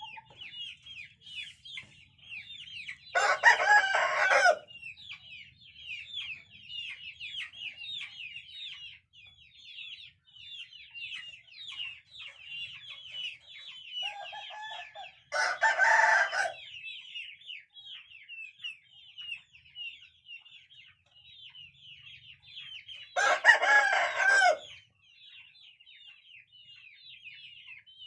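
Rooster crowing three times, each crow short and loud, about 3, 15 and 23 seconds in. Under it, a steady rapid high chirping of other birds.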